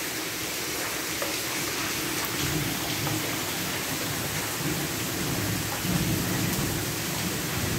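Heavy rain pouring down steadily, an even hiss of the downpour.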